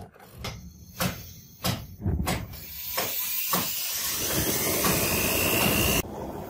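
Several metal knocks and clinks as a rusty chain link is set into a homemade pipe forge. Then the forge's gas burner is lit and runs with a steady, loud hiss that builds over a couple of seconds and cuts off abruptly near the end.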